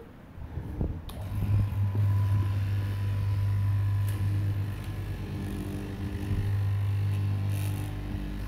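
Electric straight-knife cloth cutting machine running with a steady hum as its blade cuts through a thick stack of T-shirt fabric. The hum starts about a second in.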